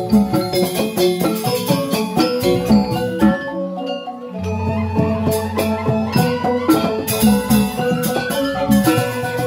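Balinese joged bumbung gamelan: bamboo xylophones (grantang) playing fast, dense struck patterns with kendang drums. The music thins out briefly a few seconds in, then a deep held tone sounds beneath it for a few seconds.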